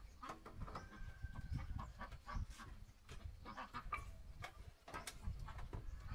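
Chickens clucking intermittently, with scattered light clicks and knocks.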